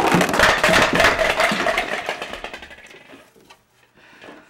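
A plastic crate full of balloon-like objects being handled: a dense rattling, rubbing clatter with a faint squeak, loudest in the first two seconds and fading out by about three seconds in.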